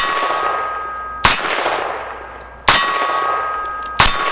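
Four .22 Magnum shots from a Heritage Rough Rider single-action revolver, a little over a second apart, each answered at once by the ringing of a steel silhouette target being hit, the ring fading before the next shot.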